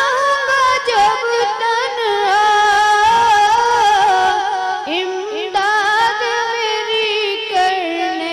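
A boy singing a devotional naat into a microphone in a high voice, holding long notes and ornamenting them with quick turns and slides.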